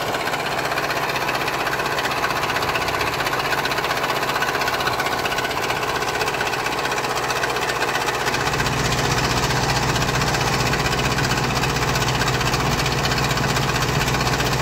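JCB backhoe loader's diesel engine running steadily while the backhoe arm works gravel. About eight seconds in it gets louder and deeper, and holds there.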